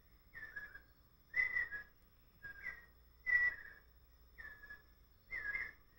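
An animal's whistled call: a short, slightly down-slurred note repeated about once a second, six times, with a faint steady high tone behind it.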